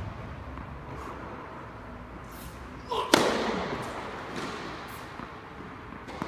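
A tennis ball struck hard by a racket about three seconds in, with a single sharp crack that echoes around the big indoor tennis hall. A short squeak comes just before it, and there are light taps of the ball bouncing on the court near the end.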